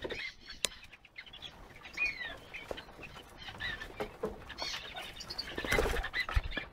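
Kakariki parakeets' wings flapping as they take off and fly low. Short falling bird chirps come in between, and the loudest flurry of flapping is near the end.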